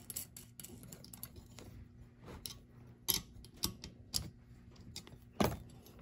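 Scattered light clicks and knocks of metal flat-bar pieces and bolts being handled and fitted into a bolted frame. The sharpest knock comes near the end.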